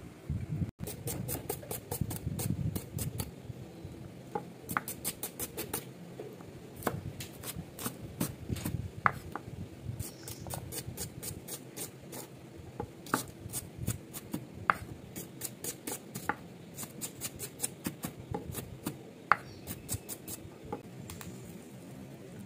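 Kitchen knife chopping shallots on a wooden cutting board: quick runs of sharp knocks, about five or six a second, with short pauses between runs.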